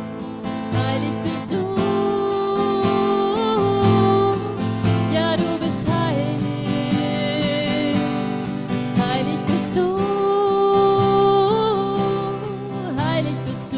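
Devotional song with a strummed acoustic guitar under a singing voice that holds long, wordless notes, each ending with a wavering bend.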